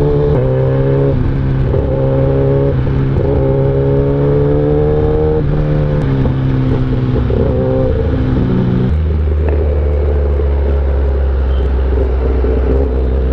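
Inline-four superbike engine running under way at moderate revs, its note climbing gently and then stepping down several times. About nine seconds in, the tone falls away into a deep, low rumble.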